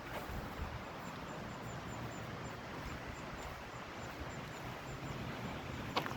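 A brook flowing: a steady rush of water, with a sharp click near the end.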